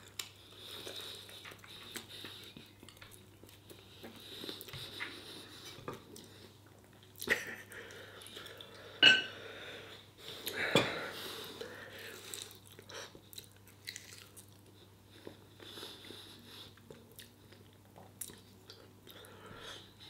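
A person chewing and biting into barbecued pork ribs, with soft, scattered mouth clicks and smacks and a few louder bites.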